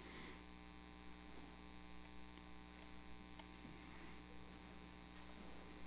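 Near silence: a faint, steady electrical mains hum from the microphone and sound system.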